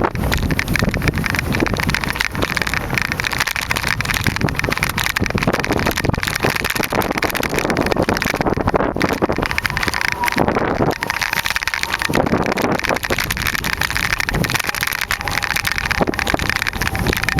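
Wind buffeting the microphone over the crunch and rattle of an XTC840 mountain bike riding on a gravel road, with many small irregular knocks and clatters from the bike.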